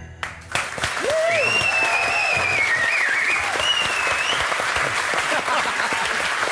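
The last piano note of the song dies away and a studio audience breaks into loud applause about half a second in, with a few whoops and calls over the clapping in the first seconds.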